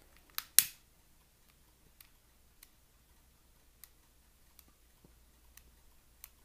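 A click and then a louder sharp snap about half a second in, followed by a few faint ticks: a long-nosed butane lighter being clicked on and handled while its flame is passed over a clear 3D-printed plastic part to burn off stringy fuzz.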